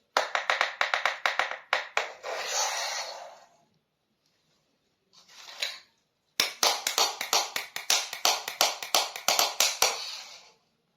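Small plastic miniature kitchen-toy pieces being handled: two runs of rapid clicking and tapping, with a short rustle of packaging between them.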